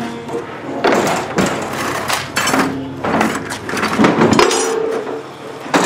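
Scrap being handled and set down: a run of irregular clanks and knocks, about nine in all, the last one shortly before the end.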